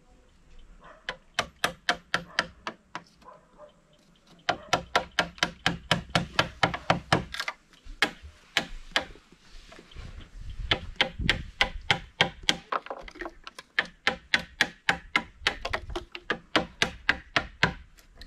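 Hammer striking a wood chisel, chopping a mortise into a square timber post: a fast, even series of sharp taps, about four a second. The taps are lighter at first and grow louder about four seconds in.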